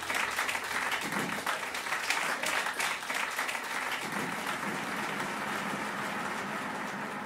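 Audience applauding: dense clapping that thins out and gradually fades away.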